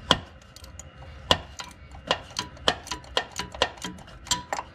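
Ratcheting wrench clicking in short, slow strokes on a 13 mm motor-mount bolt: about a dozen separate sharp clicks at an uneven pace, the loudest right at the start and another about a second in.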